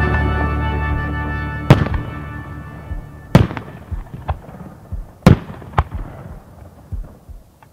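Aerial fireworks going off as about five separate sharp reports a second or so apart, while a held chord of the accompanying music fades out.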